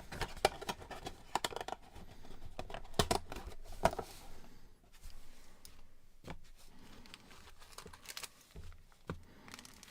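Packing foam and a small box being handled: irregular rustling, scraping and small clicks as the contents are lifted out, busiest in the first four seconds and sparser after.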